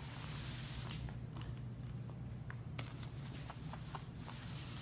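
Paint roller spreading wet contact adhesive across a door, a soft hiss that comes and goes with the strokes, with small scattered clicks over a steady low hum.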